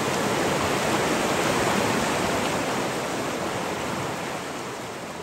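Fast water of a freestone river rushing over rocks, a steady hiss that slowly fades out over the last few seconds.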